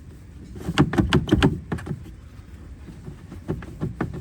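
A run of unevenly spaced clicks and knocks, bunched about a second in and again near the end.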